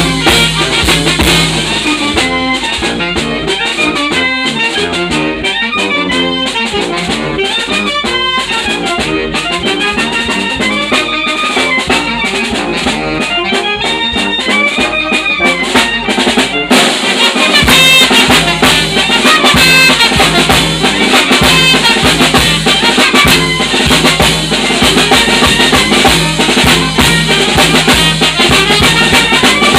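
A small banda playing live: trumpets, alto saxophone and clarinet over a drum kit keeping a steady beat. About halfway through the band comes in louder and fuller.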